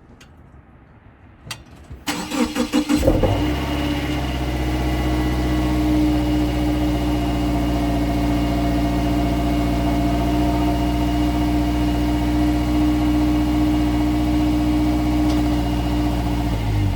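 2016 Subaru Outback four-cylinder engine starting about two seconds in with a short pulsing crank, then idling steadily, heard from beneath the car at the muffler. The low idle brings out a metallic rattle from inside the muffler, which the owner puts down to a failed spot weld on an internal baffle.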